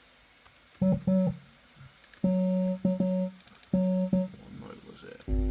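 Synth bass line from an Ableton Operator FM patch, a sine wave modulated by a second sine for a resonant, hollow garage-style tone, played as a short phrase of clipped notes with abrupt starts and stops. Near the end two buzzier notes with a deeper low end sound.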